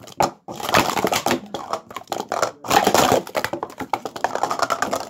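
Plastic Speed Stacks sport-stacking cups clattering as they are stacked up and down at speed on a mat: a dense, fast stream of light clicks and taps.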